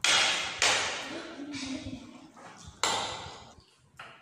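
Metal spoons and forks striking ceramic plates of noodles: four sharp clinks, each ringing away.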